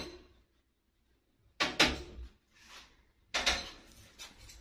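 Knocking on a door: two quick clusters of sharp raps, about a second and a half apart.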